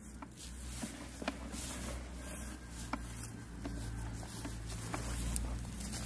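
Faint, irregular light ticks and rustles of oat seeds being sown by hand and of feet moving in dry grass, over a low wind rumble on the microphone.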